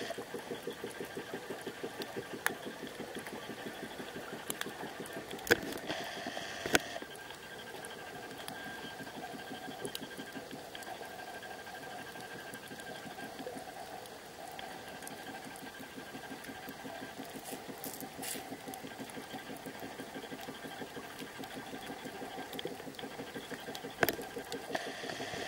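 Lumix TZ10 lens motor picked up inside the camera's sealed underwater housing: a fast, steady mechanical pulsing buzz. A faint high tone joins in for several seconds midway, and a few sharp clicks stand out.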